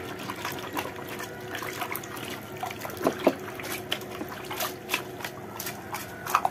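A hand sloshing and splashing water around in a basin while it rummages for toy cars, with irregular small splashes and a few louder splashes and knocks.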